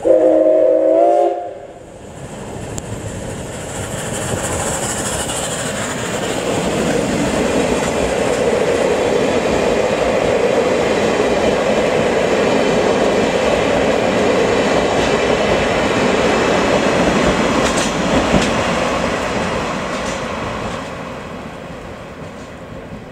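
Steam locomotive C61 20's whistle blows one loud blast of about a second and a half, several tones sounding together. Then the train runs past close by: the locomotive and five old-type passenger coaches rumbling and clacking over the rails, building to a steady loud run and fading near the end.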